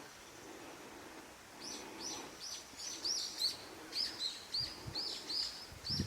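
A songbird singing a long run of short, high, sharply repeated notes, about two or three a second, starting about a second and a half in, over a faint outdoor hush.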